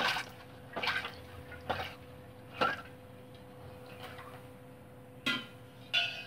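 Soaked chickpeas tipped and pushed by hand from a steel bowl into water in a pressure cooker: a run of short splashes and plops, about six, roughly a second apart.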